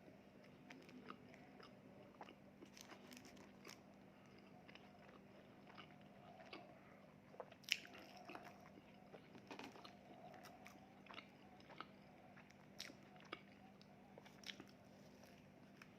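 A person eating fast food with soft biting and chewing, broken by many short, crisp crunches. The sharpest crunch comes about eight seconds in.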